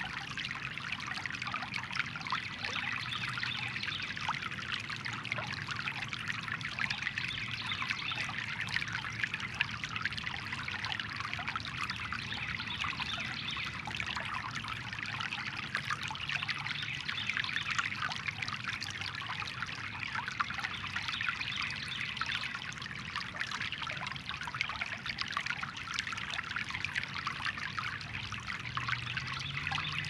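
Shallow brook babbling over rocks: a steady, bubbling trickle of running water.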